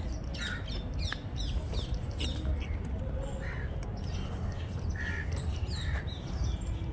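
Birds calling in woodland: many short, scattered chirps and a few harsher calls, over a steady low rumble.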